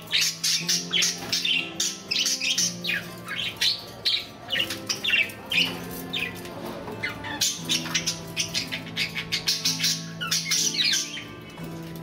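A small flock of caged budgerigars chattering with dense, rapid chirps and squawks, over soft background music of held low notes.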